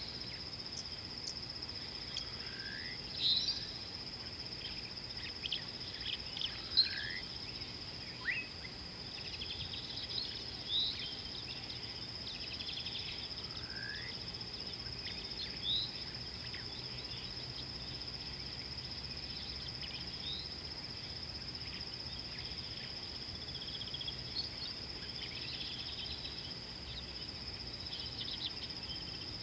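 A steady high-pitched insect drone from crickets or cicadas, with short rising bird chirps every few seconds, most of them in the first half.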